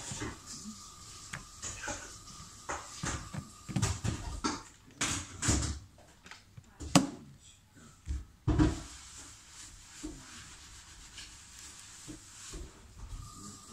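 Handling noise of a smartphone in its case: uneven clicks, taps and rubbing as it is picked up, turned and set back down on a bamboo mat, with the sharpest knock about seven seconds in.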